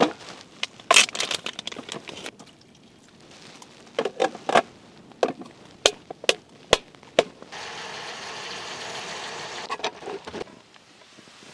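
Food packaging being handled: plastic crinkling and crackling with sharp clicks and taps. About halfway through, a steady hiss runs for roughly three seconds.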